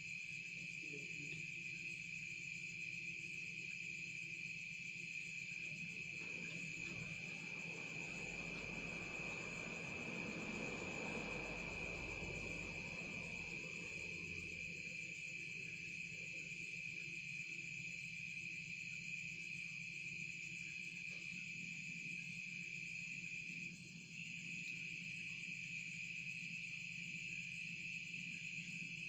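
Insects chirring in a steady, continuous high-pitched chorus of several overlapping tones. A stretch of rustling noise with a low rumble comes in about six seconds in and fades by about fourteen seconds.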